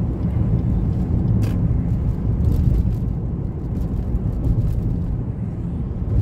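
Steady low rumble of a moving car heard from inside the cabin: engine and tyre noise while driving along a city street.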